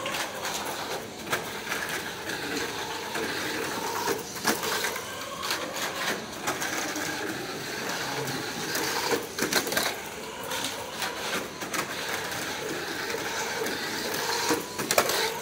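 Tamiya Mini 4WD car running laps on a plastic track: its small electric motor and gears whirr steadily, with sharp clacks every few seconds as it strikes the track.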